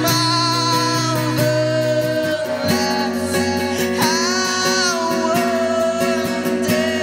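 Live worship band playing a song: a singer holds long sung notes over electric guitar and keyboard, the low chord changing about two and a half seconds in.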